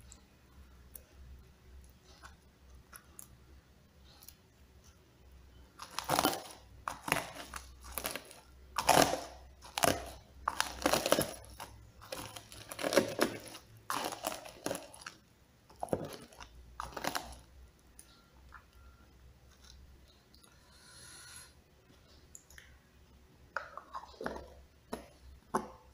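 Chunky chili sambal shaken and scraped out of a small plastic tub onto crispy fried chicken: a run of irregular crunchy scrapes and taps lasting about ten seconds, then a few softer taps near the end.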